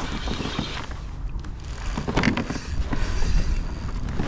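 Daiwa BG MQ 2500 spinning reel working during the fight with a hooked redfish, with a few scattered clicks, over a steady low wind rumble on the microphone.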